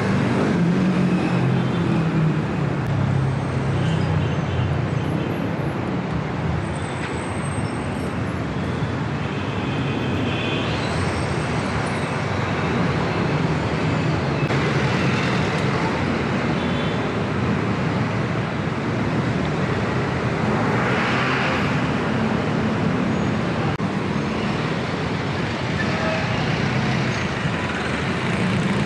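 Busy city street traffic: a steady din of engines from jeepneys, buses, cars, tricycles and motorcycles running and passing close by, with a brief louder hiss about two-thirds of the way through.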